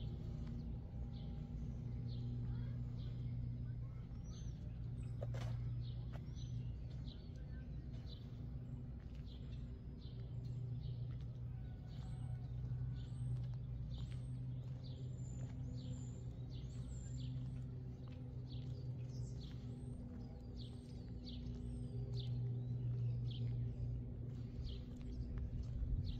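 Small birds chirping again and again, short high calls that sweep in pitch, about one a second, over a steady low hum.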